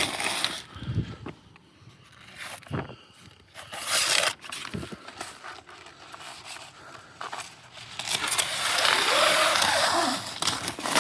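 Sandpaper scraping over cured epoxy by hand: a few short rasping strokes, then one longer continuous scrape of about two seconds near the end.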